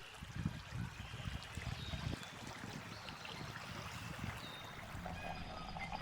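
River water flowing steadily, with a few short, high bird chirps scattered through.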